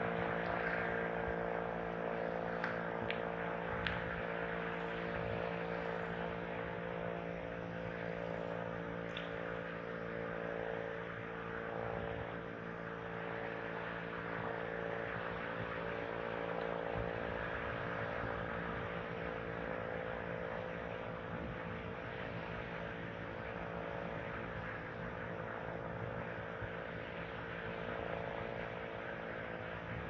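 Steady motor-like drone, a hum of several fixed tones that holds unchanged throughout, over a hiss of surf.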